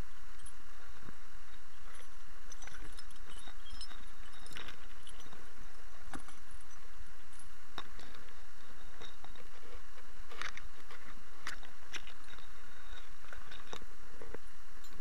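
Long grass brushing and crackling against a camera dragged low through it, with a steady rustle and a low rumble, and many short crackles and clicks.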